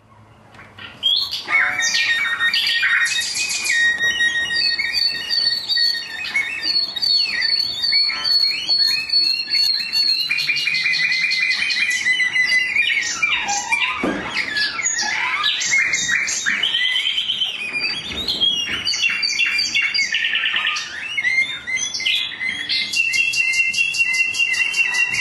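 Solo cello bowed in high squeaks, chirps, whistling harmonics and sliding pitches that sound like bird calls. It starts about a second in.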